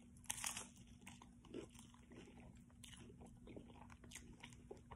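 A bite into a Doritos Locos taco's crunchy Doritos-flavoured hard corn shell, with a sharp crunch about a third of a second in, then faint, scattered crunches as the shell is chewed. A faint steady hum lies underneath.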